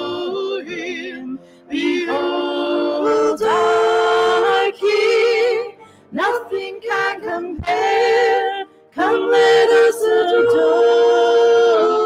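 Voices singing a worship song, with long-held notes and vibrato, breaking briefly between phrases.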